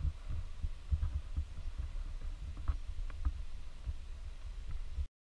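Low, muffled rumbling with uneven soft thumps, and a few faint clicks about halfway through; the sound cuts off abruptly just before the end.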